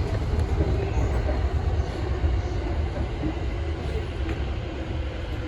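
Commuter electric train running on rails, heard from inside the car: a steady low rumble of wheels on track that slowly grows a little quieter.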